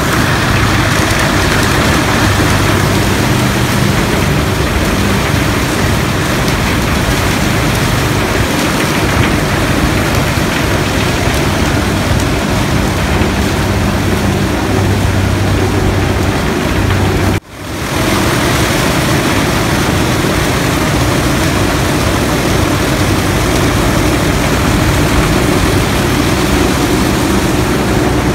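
Sugar mill cane conveyor and crushing machinery running: a loud, steady mechanical din with a low hum underneath, as sugarcane is carried into the mill. The sound drops out for a moment about two-thirds of the way through.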